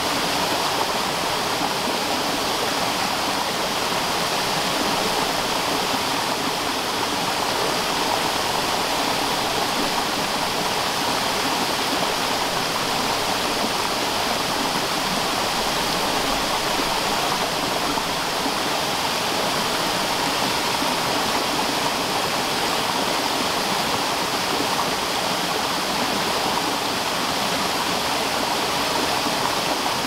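Waterfall cascading down a rocky slope into a boulder-strewn stream: a steady, unbroken rush of falling water.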